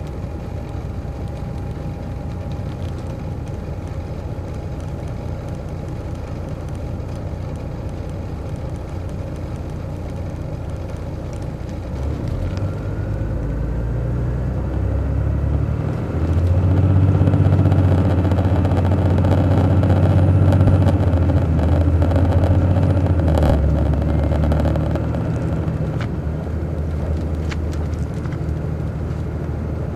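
Detroit Diesel Series 60 engine of an MCI D4000 coach, heard from on board, running steadily, then building up as the bus accelerates from about twelve seconds in, with a faint rising whine. It pulls loudest from about sixteen seconds, then eases off after a single knock a little past twenty-three seconds.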